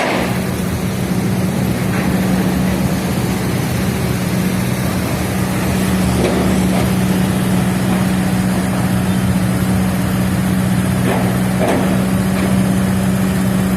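Road traffic: a steady wash of motor-vehicle noise under a constant low engine drone, with no pauses.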